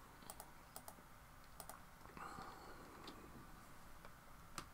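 A few faint, irregular clicks of a computer keyboard and mouse, with a slightly sharper click near the end, over near-silent room tone.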